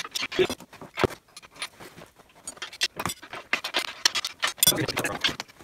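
Wrenches and bolt hardware clinking and rattling against the steel frame of an engine hoist in a quick, irregular run of metallic clicks while a nut is started on a bolt by hand.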